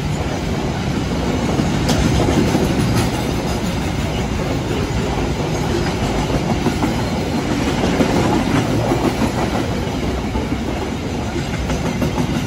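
Freight train wagons rolling past in a continuous rumble, their wheels clattering on the rails, with no horn sounding.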